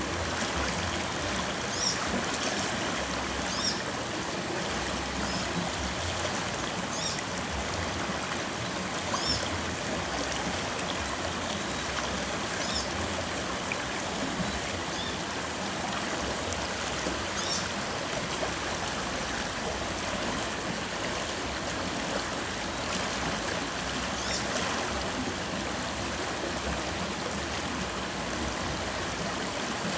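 River water flowing steadily, an even rushing with no breaks, with faint short high chirps now and then.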